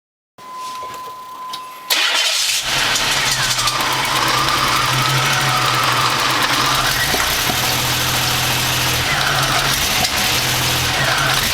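A steady beep for about a second and a half, then the Buick Century's 3.3-litre V6 starting about two seconds in and running steadily at idle. This engine misses, backfires through the intake and loses power, though its owner finds it idles without a miss.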